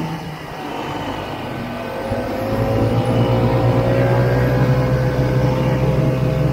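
1967 Ski-Doo Olympic snowmobile's two-stroke engine running while riding, easing off at first, then picking up about two seconds in and holding a steady note.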